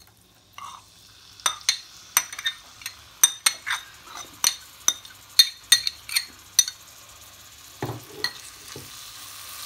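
A metal spoon clinks sharply over and over against a glass bowl as grated onion is scraped out into hot oil, with a light frying sizzle underneath. Near the end the spoon knocks in the pan and the sizzle grows steadier as the onion starts to fry.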